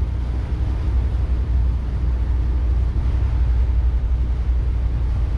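Motor cruiser under way: a steady low drone from its engines, with an even rushing hiss over it.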